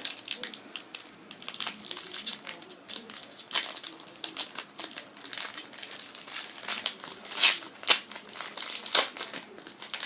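Hockey trading-card pack being opened and handled: irregular crinkling and crackling of its wrapping, with the loudest crackles in the second half.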